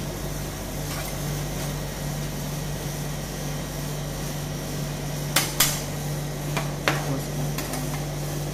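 Metal ice cream spatulas knocking and clinking against a steel cold plate while rolled ice cream is scraped up: a few sharp clacks about halfway through, two close together, over a steady low hum.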